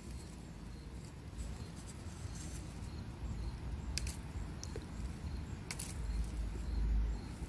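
Rustling of a cherry tomato plant's leaves and stems handled by hand, with a couple of sharp clicks about four and six seconds in, over a low rumble on the microphone that swells near the end.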